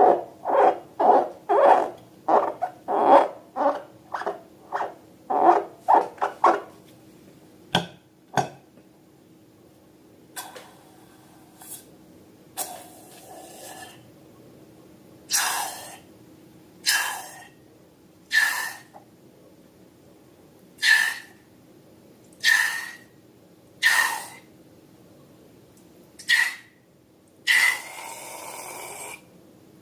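Novelty balloons letting out air: a quick run of short hooting squeaks in the first six seconds or so. After a pause come short hissing spurts of air with a whistle in them, about one every one and a half seconds.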